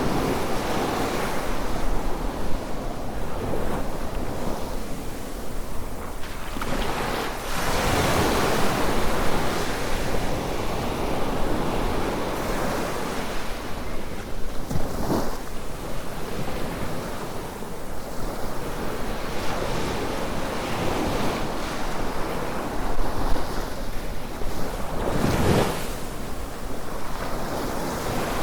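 Ocean surf washing onto the beach, a steady rush with a few louder waves breaking: one about a quarter of the way in, one midway and one near the end.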